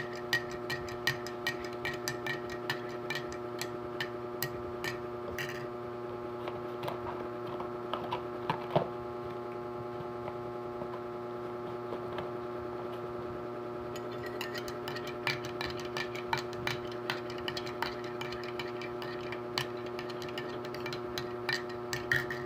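Metal spoon clinking against the inside of a ceramic coffee mug while stirring: a quick run of light ticks, several a second, for the first five seconds or so, only scattered ticks in the middle, then a steady run again from about fourteen seconds in. A steady hum runs underneath.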